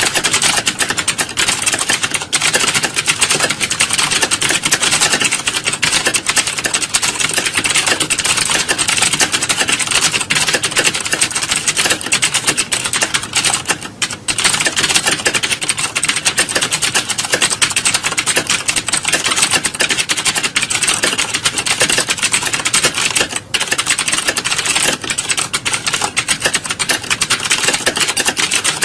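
Fast, continuous typing: a dense stream of rapid key clicks, broken by a couple of brief pauses partway through.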